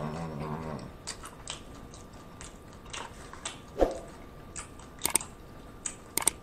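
Close-miked chewing of a crunchy hard-shell taco, opening with a hummed "mmm" of about a second, then scattered crisp crunches and a single dull thump near the middle.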